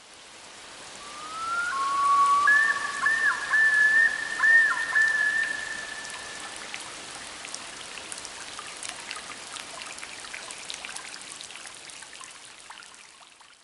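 Exotic bird calls: a rising whistle, then two held clear whistled notes broken by quick looping warbles, loudest in the first few seconds. Behind them a steady hiss scattered with many short chirps and clicks runs on and fades out near the end.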